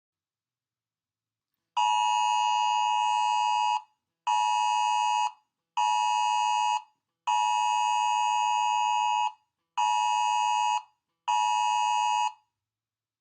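Emergency alert alarm tone: a steady electronic beep near 1 kHz in a long-short-short pattern played twice, about a two-second tone then two one-second tones, six tones in all, starting about two seconds in.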